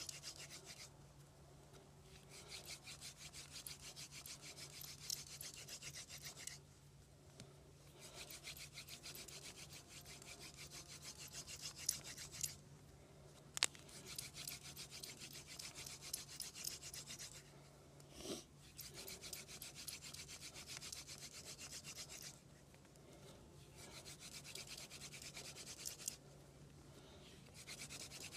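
Hand drill fire-making by friction: a wooden spindle spun back and forth between the palms, grinding into a wooden hearth board with rapid rasping strokes. It comes in spells of a few seconds, broken by short pauses, with an occasional sharp click.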